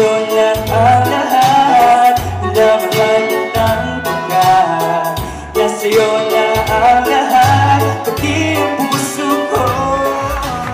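A song: a singing voice carrying a melody over backing music with a bass line.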